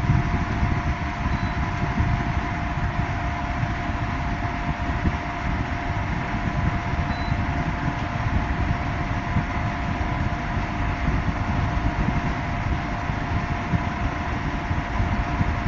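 Portable spot air conditioner running: a steady fan rush with a constant mechanical hum and a fluctuating low rumble.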